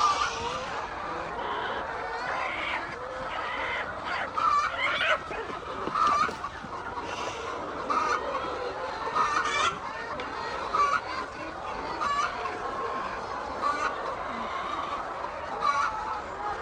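A flock of hens clucking, short calls following one another about every second over the steady chatter of many birds.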